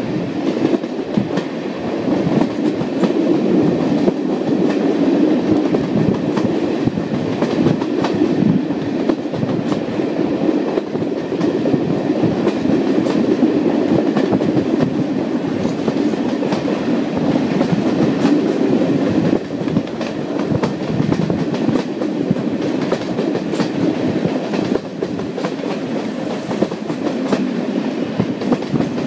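Passenger coach running at speed behind a Class 37 diesel locomotive, heard from an open window: a steady rushing rumble with the wheels clicking over rail joints, and the locomotive working hard at the head of the train.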